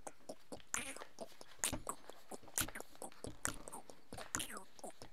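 A sheet of paper being creased and handled by fingers as an origami boat is folded: irregular crisp crackles and light taps, several a second.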